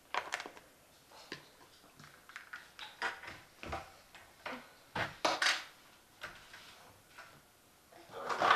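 Kitchen handling sounds: scattered knocks and clicks of cupboard doors, drawers and dishes, with a louder rush of noise near the end.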